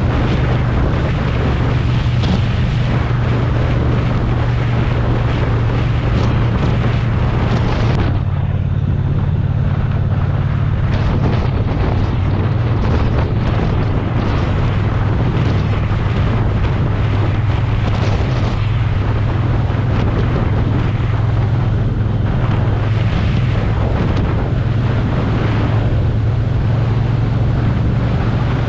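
Motorcycle engine running steadily at riding speed, a low steady drone under loud wind noise buffeting the microphone. The higher wind rush drops back about eight seconds in.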